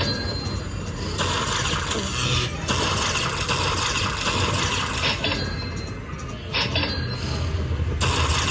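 Eyes of Fortune Lightning Link slot machine sound effects during its bonus round, in bursts a few seconds long that start and stop abruptly over casino background noise.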